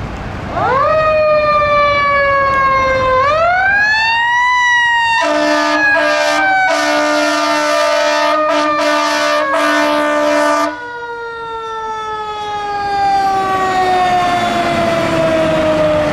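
Fire engine's siren winding up, sagging, rising again, then winding slowly down, with a series of about six short and long air horn blasts over the middle of it.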